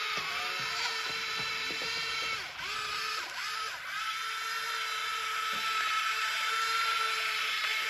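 Electric motor and gearbox of an RC car whining steadily, the pitch dipping briefly a few times around the middle before settling back.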